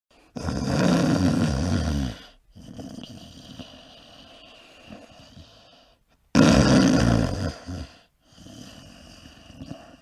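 A person snoring: two rough, low snores about five or six seconds apart, each lasting under two seconds and followed by a quieter, longer breath.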